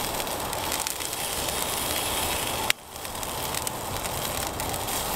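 Sausages sizzling on a grill grate over a campfire, with the fire crackling in small sharp pops. The sound breaks off briefly a little under three seconds in, then carries on.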